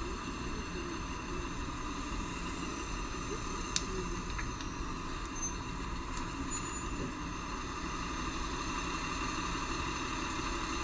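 Steady hum of a vehicle's engine and running noise heard from inside the vehicle, with a single sharp click about four seconds in.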